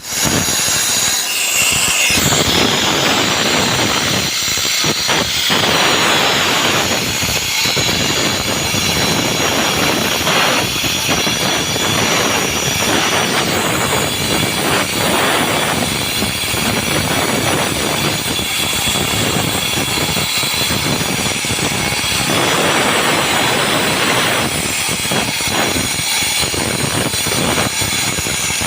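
Concrete-cutting saw running and cutting into a concrete slab: a loud, continuous grinding noise that swells and dips a little as the blade works.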